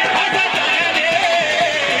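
Male singer chanting Pothwari sher folk verse over instrumental accompaniment with plucked strings and a quick, steady beat.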